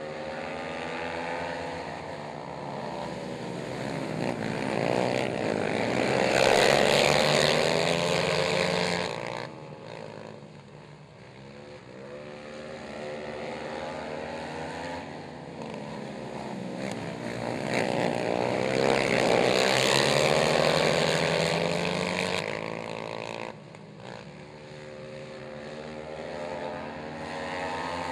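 A pack of racing quad ATVs on a dirt oval, engines revving up and down as they race through the turns. The sound swells twice as the pack comes past, then fades as it goes on around the track.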